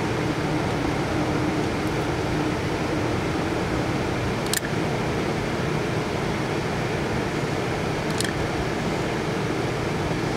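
Caulk gun squeezing out self-leveling sealant on an RV roof, its trigger giving two sharp clicks, about halfway through and near the end, over steady rushing outdoor background noise.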